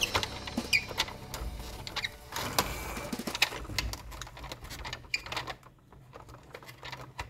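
Irregular small clicks, taps and rattles of plastic toy vehicles being handled.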